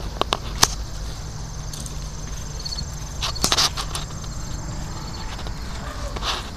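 A few sharp scuffs and clicks over a steady low rumble, most of them in a short cluster about three and a half seconds in. Faint high chirps come twice, like insects at night.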